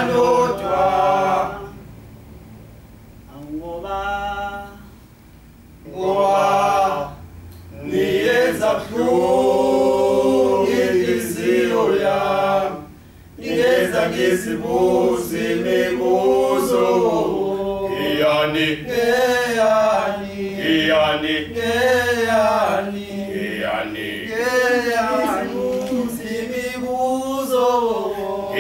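Male a cappella group singing in isicathamiya style, in sung phrases. After a quiet stretch with one faint phrase about two to six seconds in, the full voices come back, pause briefly near halfway, then sing on without a break.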